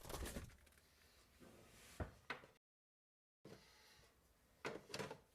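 Refrigerator door and its contents being handled: a few separate knocks and clicks, two close together in the middle and two more near the end, with a short stretch of total silence between them.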